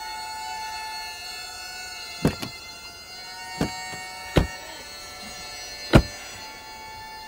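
A sustained droning chord of several held tones, broken by five sharp thuds: two close together about two seconds in, one at about three and a half seconds, one at about four and a half, and the loudest about six seconds in.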